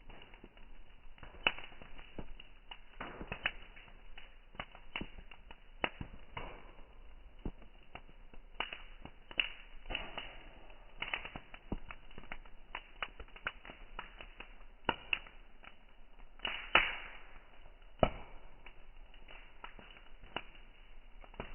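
Bonfire crackling: irregular sharp pops and snaps, some louder than others, over a soft steady hiss.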